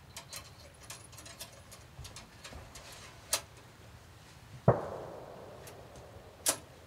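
Muzzleloader being reloaded by hand: a run of small clicks and taps, then three sharper metallic knocks. The loudest comes about two-thirds of the way in and rings briefly as it fades.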